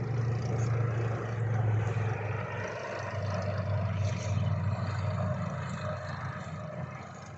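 Freight train passing: a steady low rumble with dense rolling and rail noise, starting to fade near the end.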